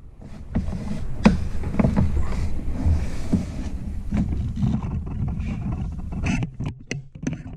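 A road cycling shoe's cleat knocking and scraping on a plastic Ergon cleat-fitting board as the shoe is set down and pressed into place: several light knocks over a steady low rumble, with a few sharper clicks near the end.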